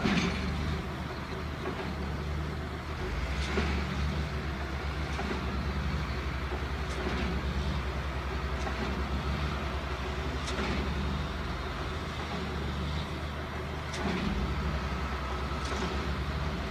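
XCMG GR215 motor grader's diesel engine running steadily as the machine grades over rocky fill, with a few short sharp knocks scattered through.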